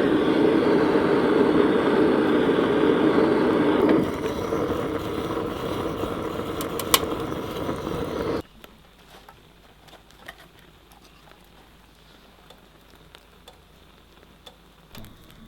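Wood fire in a rocket stove burning hard, a steady rushing draught noise with crackle and a sharp crack about seven seconds in. It cuts off abruptly a little after eight seconds, leaving faint scattered ticks.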